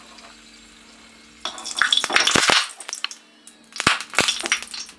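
Dried red chillies in hot oil in a small steel pan, spluttering and popping in loud bursts about a second and a half in and again near the end: water in the hot oil is spattering. A few sharp clicks come among the later bursts.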